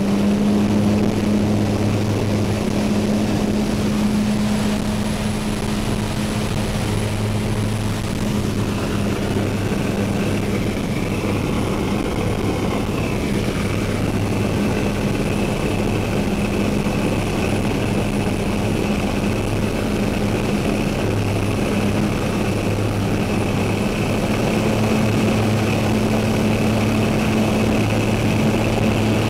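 Seaplane's propeller engine droning steadily at takeoff power, heard inside the cabin, over the hiss of water spray thrown up by the floats.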